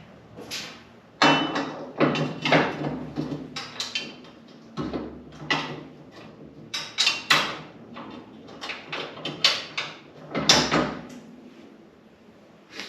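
Hand tools and metal parts clattering and knocking as motorcycle front-end work is finished: an irregular run of sharp clacks, loudest about a second in and again about ten seconds in.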